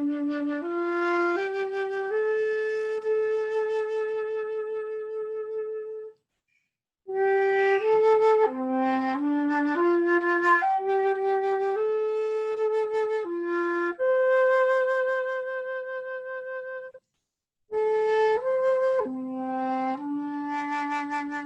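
Solo flute playing a slow, calm melody one note at a time, with held notes that waver gently. The melody stops briefly twice, about six seconds in and again near seventeen seconds.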